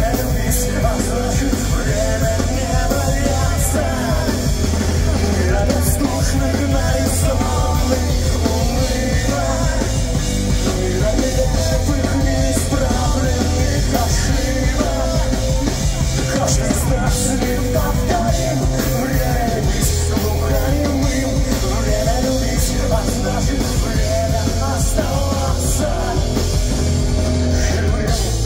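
Live punk-rock band playing loud through a club sound system: a full band with drums, with singing over the top.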